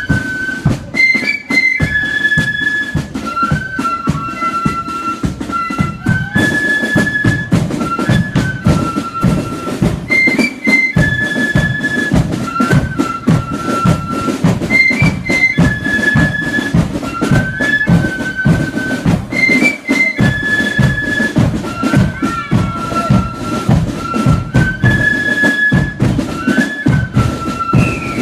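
A flute band playing a march: a melody on flutes, repeating phrase after phrase, over a steady drumbeat.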